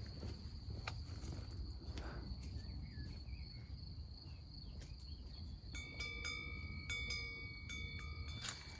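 Steady high-pitched chirring of crickets, with a bell ringing in several strokes over the last few seconds, like a cowbell on grazing cattle.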